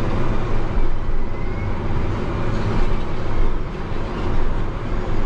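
John Deere tractor's diesel engine and drivetrain running steadily at field speed, heard from inside the cab as a loud, even drone with a strong low hum.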